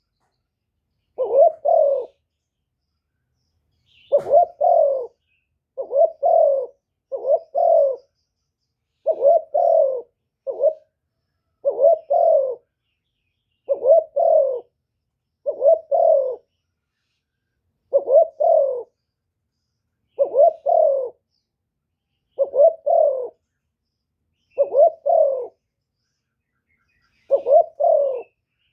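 Spotted dove cooing: short, repeated multi-note coo phrases, about one every two seconds, the call used as a decoy to draw wild doves. A faint click comes about four seconds in.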